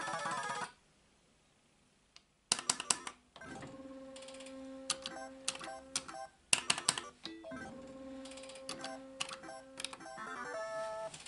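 Solex 2 pachislot machine during a free-game round. A short electronic jingle cuts off, then after a pause come groups of sharp clicks from the lever and stop buttons as the reels spin and stop, over a steady electronic tone. A brief jingle sounds again near the end.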